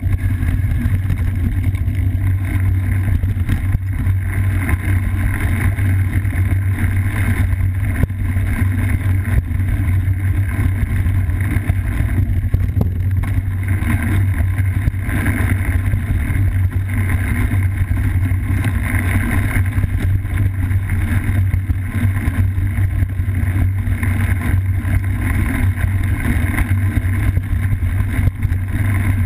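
Steady rumble of a cyclocross bike rolling fast over a dirt singletrail, heard through a bar-mounted GoPro: wind on the microphone, tyre and frame vibration, and a few faint knocks from bumps in the trail.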